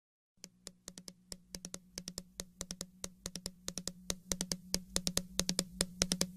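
Quick, irregular sharp clicks, several a second, fading in and growing louder over a steady low hum.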